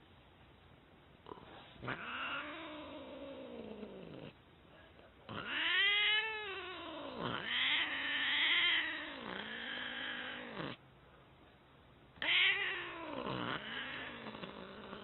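Domestic cat giving a run of long, drawn-out meows, about seven, each rising and then falling in pitch, with a short pause before the last two.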